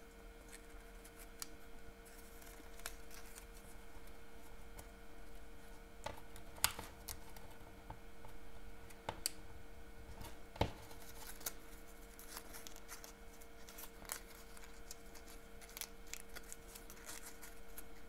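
Paper handling: soft rustling and scattered light clicks as fingers press and shape layered paper poinsettia petals that are being glued together, over a faint steady hum.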